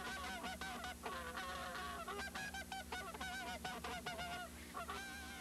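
A flock of geese calling, many honks and yelps overlapping in a continuous chorus.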